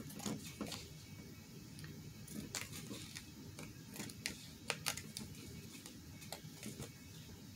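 Scissors snipping through fabric and the paper tag beneath it, a faint, irregular run of short crisp snips as they cut around the edge.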